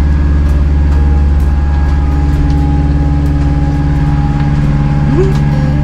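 Sailboat's inboard engine running steadily under way, a loud low hum with a fine even pulse, heard from inside the cabin.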